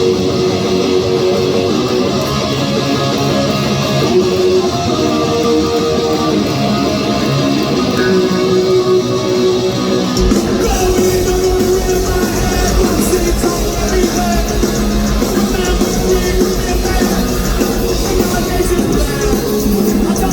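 Punk rock band playing live: a distorted electric guitar riff alone at first, with the drums and bass coming in about halfway through.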